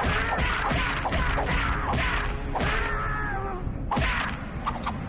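A rapid flurry of punching thuds, about three a second, mixed with a man's groans of pain. The blows pause near four seconds in, then come twice more.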